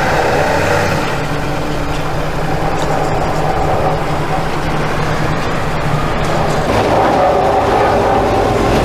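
Heavy diesel machinery running steadily: loader engines working a clay heap, giving way near the end to a geared clay crusher and mixer turning.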